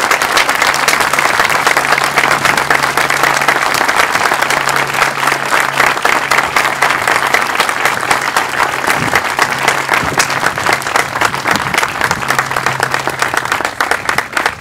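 Crowd applauding, a dense steady clatter of many hands clapping that dies away near the end.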